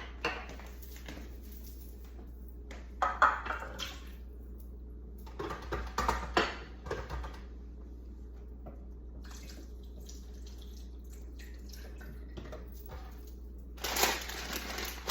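Water running or splashing in short spells of about a second each, with some handling sounds between them.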